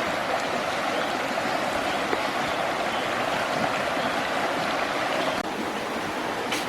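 Steady rushing of running water, like a stream. It drops slightly and suddenly a little over five seconds in.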